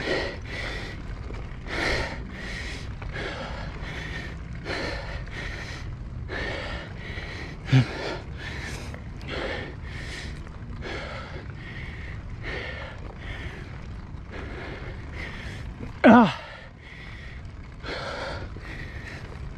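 A mountain biker breathing hard in quick, rhythmic gasps while pedalling uphill, over a steady low rumble of riding noise. A short loud sound with a falling pitch comes about eight seconds in, and a louder falling one about sixteen seconds in.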